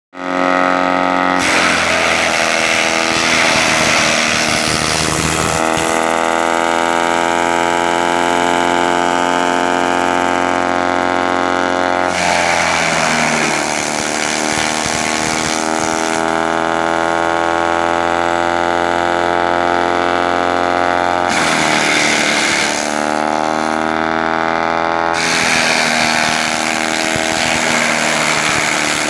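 Tractor-driven compost shredder running: a steady machine hum from the engine and spinning rotor. Several times it is overlaid by crackling and rattling as branches are fed in and chopped, and the pitch sags under the load, then climbs back.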